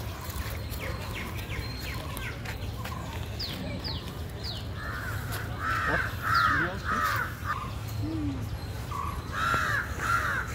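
Crows cawing: a run of harsh caws about halfway through and two more near the end, with a few short bird chirps just before.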